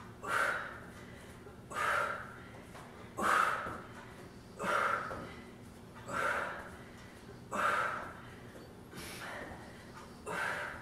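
A woman's sharp, forceful exhalations, about one every second and a half, each one a breath out on the effort of a side plank knee crunch rep.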